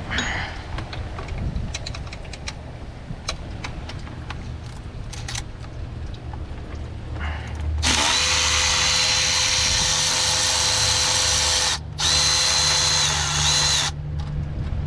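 Light clicks of tool handling, then a power tool running to back out the long water pump bolt. It spins steadily for about four seconds, stops, then gives two shorter spins.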